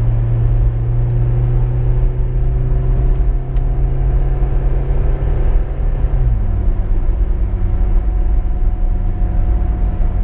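Car driving: steady engine note over low road rumble. The engine note slowly rises, then drops suddenly about six seconds in and carries on steady.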